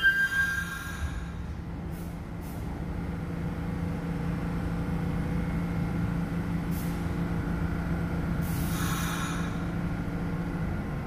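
New York City subway train at a station platform: a steady low hum over a rumble, with a few short hisses of air. The hum cuts off near the end.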